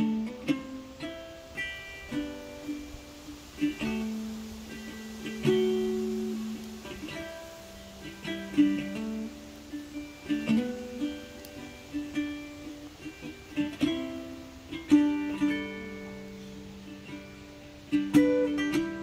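Background music of gently plucked string notes, ukulele-like, in an unhurried melody.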